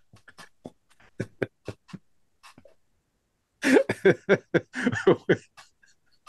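A man laughing in quick rhythmic bursts, faint at first, then louder after a short pause.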